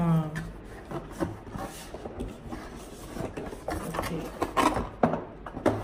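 Cardboard packaging rubbing and scraping as an inner box is lifted out of its outer carton, with a few sharp knocks and taps near the end.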